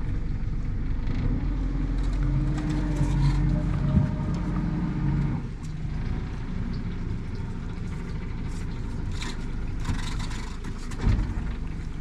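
Small boat's outboard motor running, with a steady low hum that carries a clear pitched note until about five and a half seconds in, then eases back. A few knocks and splashes follow near the end as a crab pot is hauled up.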